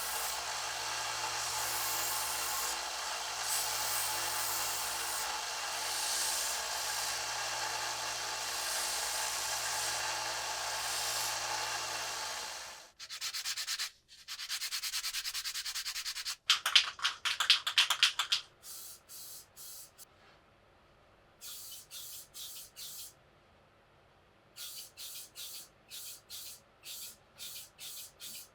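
Sanding on a knife under restoration. For about the first 13 seconds a power tool runs steadily and then stops. After that comes hand sanding in quick back-and-forth strokes, in short runs with brief pauses between them.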